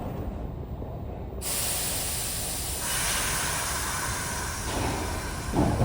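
Subway train's air system letting off a sudden, steady hiss that starts about a second and a half in and runs on for several seconds.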